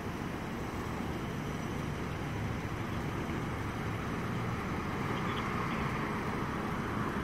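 Steady rumble of street traffic and idling vehicles, growing slightly louder near the end.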